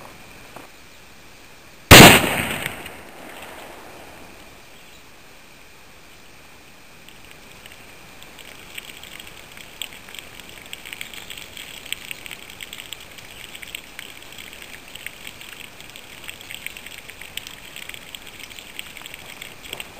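A single .270 Winchester rifle shot with the 150-grain Federal Fusion bullet striking and bursting the water jugs and wet pack, heard from beside the target. One sharp, very loud report about two seconds in that dies away over about a second.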